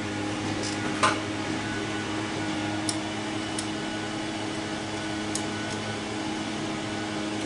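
A steady low machine hum, with a sharp metallic click about a second in and a few light ticks later, as a screwdriver turns a small screw on the carburetor's linkage.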